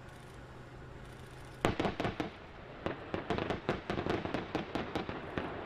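Distant military live-fire on a target range: after a quiet stretch, a burst of sharp cracks starts suddenly about a second and a half in and continues as rapid, irregular gunfire and impacts.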